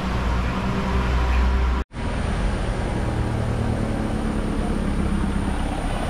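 Steady road traffic: a low engine hum over a wash of vehicle noise. It cuts out abruptly just under two seconds in, then the same kind of steady vehicle noise resumes.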